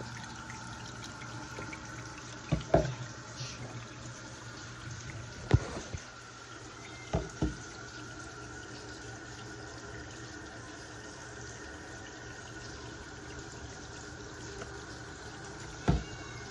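Water running steadily from a tap into a sink, with a few sharp knocks as something is handled in the basin: a pair about two and a half seconds in, one at about five and a half seconds, another pair at about seven seconds, and one near the end.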